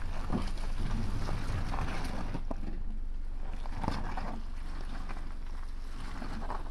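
Jeep Compass running at low speed as it creeps in reverse down a muddy trail: a steady low engine hum with its street tyres crackling and squelching over mud and stones, loudest about four seconds in. Wind rushes on the microphone throughout.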